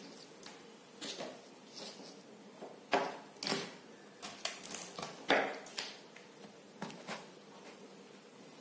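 Scattered light clicks and knocks of handling on a tabletop as a digital multimeter and its test leads are picked up and set down. The two loudest knocks come about three and five seconds in.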